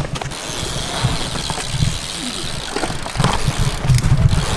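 BMX tyres rolling over a concrete skatepark surface, with wind rumbling on the moving camera's microphone and a few light knocks near the end.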